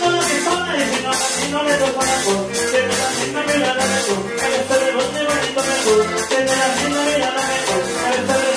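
Upbeat Latin dance music with a quick, steady percussion beat.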